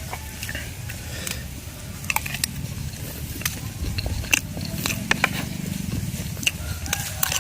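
A person chewing and biting flour-coated chicken in sweet and sour sauce: many sharp crunches and clicks at irregular intervals over a steady low hum.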